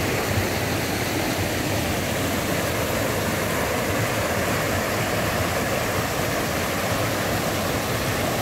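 Shallow mountain stream rushing and splashing over boulders and pebbles: a steady, even rush of white water.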